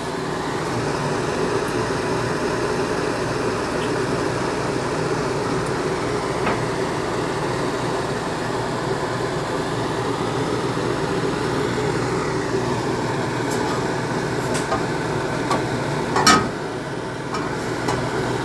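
Steady, even rushing hum, with a short clatter about sixteen seconds in as the pot is handled.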